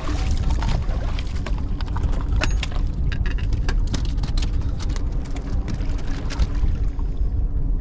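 Wind buffeting the microphone in a steady low rumble, with a quick run of sharp clicks and knocks of a freshly landed flathead and fishing gear on the shoreline rocks, thinning out near the end.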